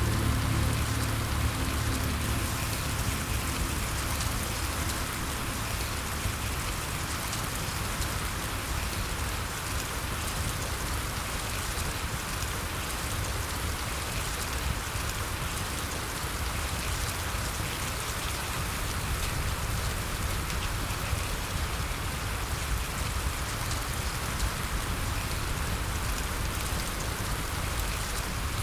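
Steady rain falling and pattering on a surface, with soft music tones fading out in the first second or so.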